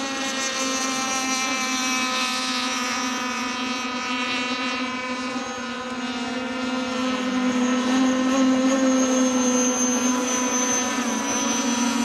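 Radio-controlled racing speedboats running flat out, their small engines giving a steady high-pitched whine that grows louder about seven seconds in.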